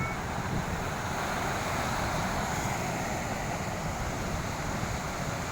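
Large ocean waves surging and breaking on the shore, a continuous wash of surf that swells through the middle, with wind rumbling on the microphone.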